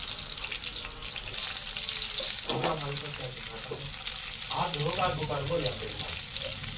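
Food frying in a pan: a steady sizzle with fine crackles. A voice is heard briefly twice.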